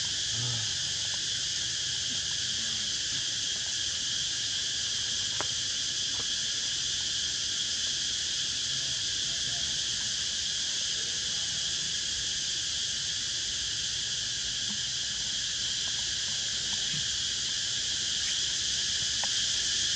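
Steady high-pitched insect chorus that does not let up, with a few faint low sounds beneath it.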